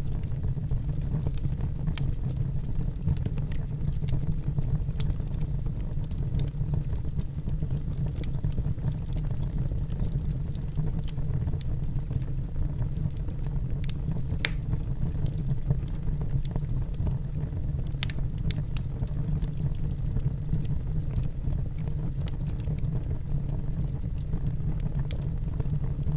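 Wood campfire burning: a steady low rumble with irregular crackles and sharp pops from the burning wood, a few louder snaps standing out.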